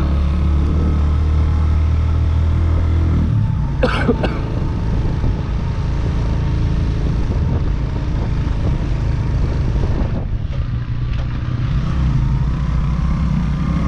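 Motorcycle engine running under way, a steady low drone. About three seconds in the engine note eases and turns uneven, then steadies again near the end, with one brief sharp sound about four seconds in.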